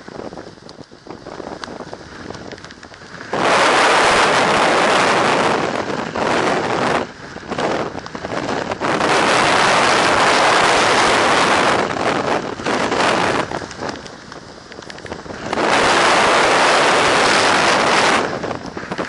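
Storm-force mountain wind, gusting to around 125 km/h, buffeting an action camera's microphone. It comes in three long, loud gusts with quieter lulls between them.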